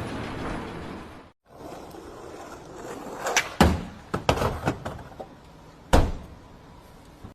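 Several sharp knocks and thuds of hard objects striking, uneven in timing, the loudest about six seconds in. Before them, a steady background noise cuts off about a second in.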